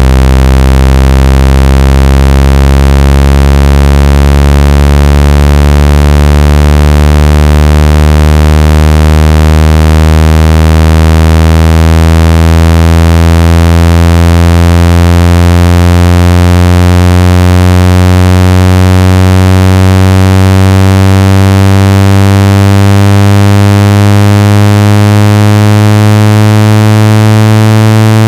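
Loud, buzzy synthetic tone from a speaker water-ejection sweep: a very low note rich in overtones, slowly and steadily rising in pitch, meant to vibrate water out of a phone speaker.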